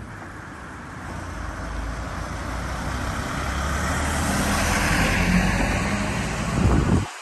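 A passing vehicle approaching, its noise growing steadily louder over several seconds with a low steady hum underneath, then cutting off abruptly near the end.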